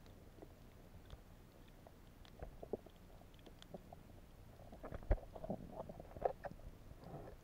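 Muffled underwater sound of water moving around a submerged camera: a faint low rumble with scattered small pops and clicks, which bunch up and grow louder about five seconds in.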